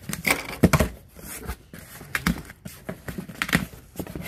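Cardboard shipping box being opened by hand: packing tape tearing and the flaps pulled open, in a run of irregular sharp crackles and knocks.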